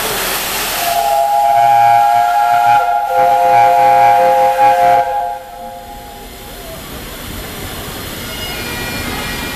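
The steam whistle of Peppercorn A1 Pacific locomotive 60163 Tornado blows several notes together for about four seconds, after a burst of steam hiss. The whistle then stops and a quieter steady hiss of steam remains.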